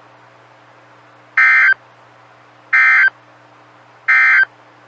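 NOAA Weather Radio Emergency Alert System End-of-Message signal: three short, identical bursts of warbling SAME data tones, about a second and a half apart, marking the end of the required weekly test. A faint steady hum and hiss from the radio lie underneath.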